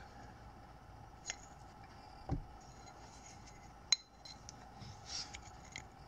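A few faint, sharp metallic clicks and light scraping of a small steel tire iron working against a motorcycle brake caliper, levering the caliper pistons back into their bores, over a faint steady hum.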